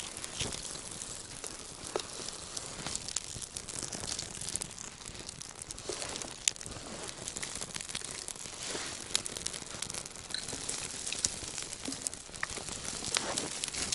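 Dry twigs rustling and crackling as handfuls are laid onto a small, freshly lit kindling fire that is just catching, with scattered sharp snaps.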